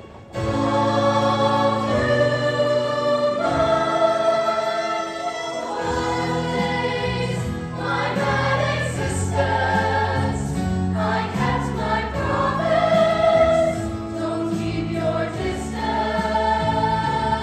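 Show choir singing together into microphones over an instrumental accompaniment with a steady low bass line. The music comes in suddenly at full volume after a brief dip at the very start, then holds long sung notes.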